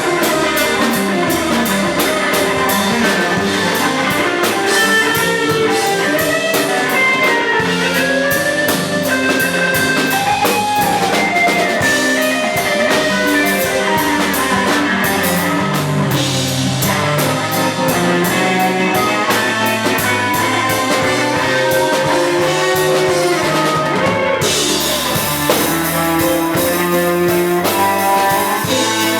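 Rock-jazz band playing a loud instrumental passage on guitar and drum kit. The cymbals grow louder near the end.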